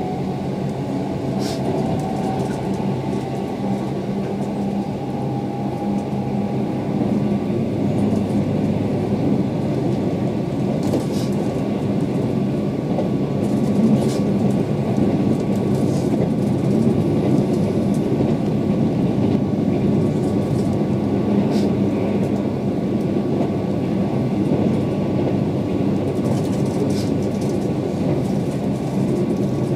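Keihan 8000 series electric train heard from inside the carriage while running: a steady rumble with a faint constant hum, and a few light clicks from the wheels passing over the track.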